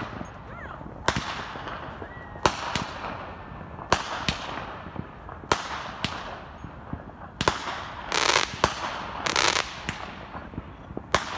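Fireworks going off: a string of sharp bangs every second or so, each trailing off in an echo, with two crackling bursts near the end.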